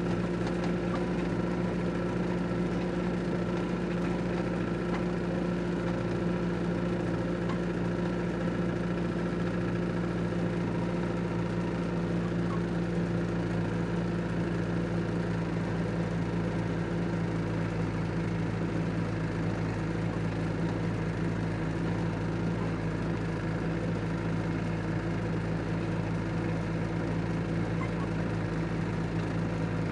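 Massey Ferguson 265 tractor's three-cylinder Perkins diesel engine running at a steady speed as it drives along powering a mounted field sprayer.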